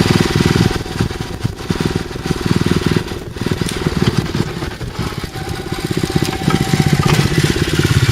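Honda four-stroke lawn mower engine running while still cold, its speed and loudness rising and falling.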